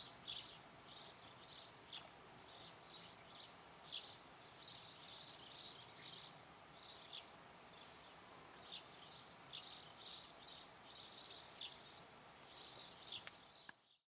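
Faint high-pitched chirping of small birds, short notes repeated irregularly over a low steady outdoor hiss; it fades out near the end.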